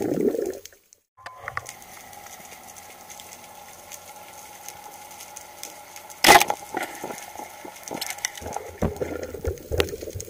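Underwater ambience with a steady faint hum, broken about six seconds in by the single sharp crack of a speargun firing. Scattered clicks and knocks follow as the spear and the speared fish are handled.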